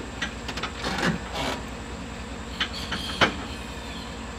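Pickup truck engine idling with a steady low rumble, with scattered clinks and knocks while a tow line is hooked up to it, the sharpest a little after three seconds in.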